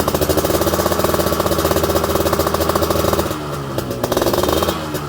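Yamaha RX-King's two-stroke single-cylinder engine revved and held at a steady raised speed, then let off about three seconds in, given one short rev that rises and falls, and let off again near the end.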